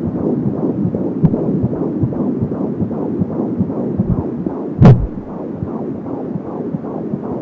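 A 15-week fetus's heartbeat through a handheld fetal Doppler (Angel Sounds): a fast, even pulsing of about three beats a second, around 170 a minute. A loud thump about five seconds in is the loudest sound.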